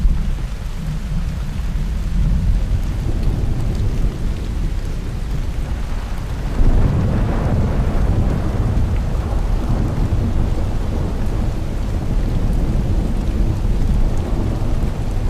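Thunderstorm: steady rain with continuous deep rolling thunder, and a louder thunder peal breaking in about halfway through that rumbles on and slowly fades.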